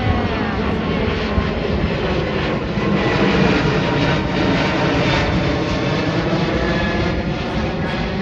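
Airliner jet engines passing low overhead: a loud, steady rushing noise, with whining tones falling in pitch at the start, loudest about three to four seconds in.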